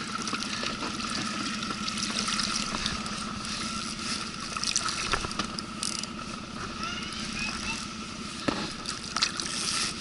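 A hooked fish thrashing at the surface beside the boat: water splashing and trickling, with several short sharp splashes. Under it runs the steady low hum of the boat's idling motor.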